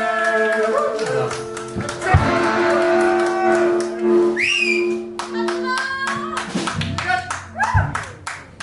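Live rockabilly band music with guitar, ending on a held, ringing chord. About four seconds in a whistle rises and falls, and sharp clicks and voices follow in the second half.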